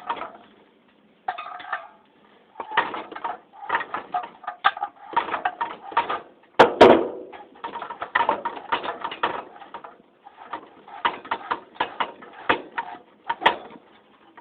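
Clattering and clicking of metal ceiling-fan parts and tools being handled during disassembly, in close, irregular runs, with one louder knock about halfway through.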